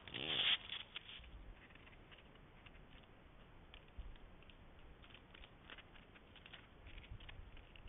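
A deer brushing against the trail camera: a short loud rustle right at the microphone, then faint scattered taps and ticks.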